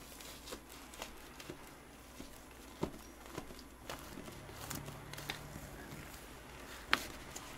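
A plastic cake knife cutting into a cream cake covered in chocolate shavings: faint scrapes and soft taps, with a few sharper clicks, the loudest near the end.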